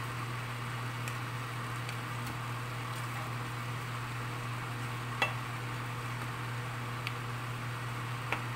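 A cooking spoon stirring a thick tomato-sauce stew in a stainless steel pan, knocking sharply against the pan once about five seconds in and lightly twice near the end, over a steady low hum.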